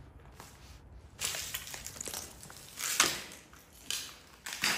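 Footsteps crunching over broken glass and debris on the floor, a series of irregular crunches starting about a second in.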